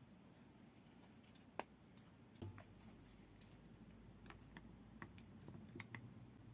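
Faint, scattered small clicks and taps over near silence, with one sharper click about a second and a half in and a soft knock a second later.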